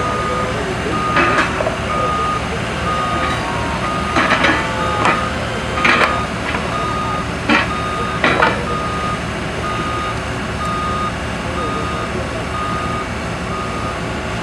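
Backup alarm on a skid steer-type machine beeping at an even pace over the engine's steady running, with a scatter of sharp knocks and clanks between about one and eight and a half seconds in.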